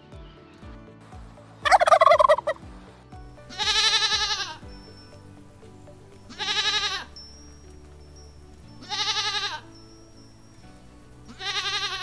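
A goat bleating four times, each bleat quavering and under a second long, about every two and a half seconds. A short, louder, harsh call comes about two seconds in, before the first bleat.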